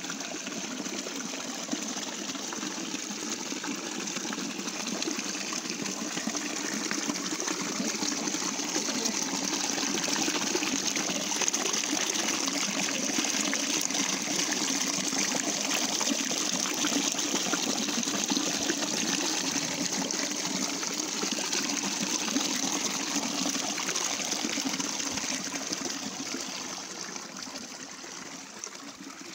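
Small stream of water running and splashing over rocks, a steady babble that swells through the middle and fades over the last few seconds.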